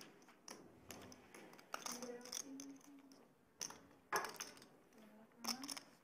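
Scattered light clicks of poker chips being handled at a card table, with faint murmur of voices.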